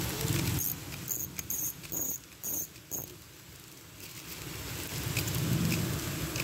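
Fishing reel's drag buzzing in about six short, high-pitched bursts as a hooked fish pulls line against a drag that was left unset. A low rumble, like wind on the microphone, sits under the first moment and builds again from about four seconds in.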